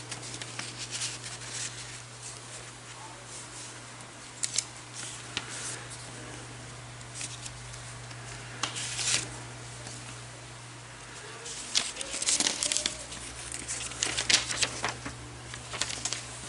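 Paper being handled: scattered rustles, crinkles and light clicks, busiest from about twelve to fifteen seconds in, over a steady low hum.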